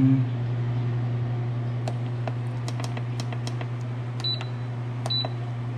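Power Pressure Cooker XL control panel beeping as its buttons are pressed to set the cooking time: two short high beeps near the end, with light clicks scattered through, over a steady low hum.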